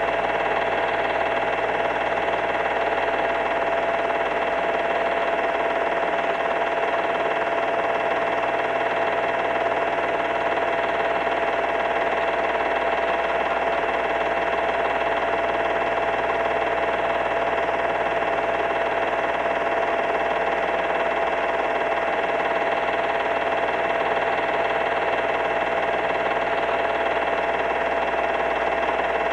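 Film projector running behind silent home-movie reels: a steady motor whine with a higher tone above it over an even hiss, unchanging throughout.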